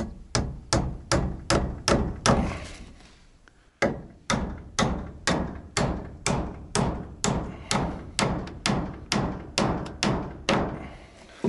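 Steel hammer driving 120 mm nails into timber framing: a run of about seven blows, a pause of over a second, then a steady run of about eighteen more at two to three blows a second.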